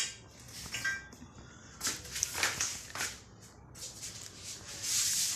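Scattered scuffs and rustles of someone walking while carrying a phone, with a longer rustling hiss near the end.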